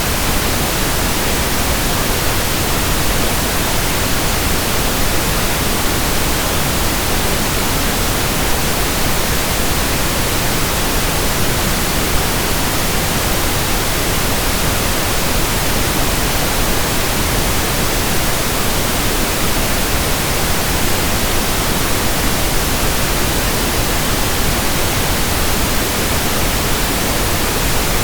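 Steady pink noise: an even, unbroken hiss at a constant level, with no change in pitch or loudness.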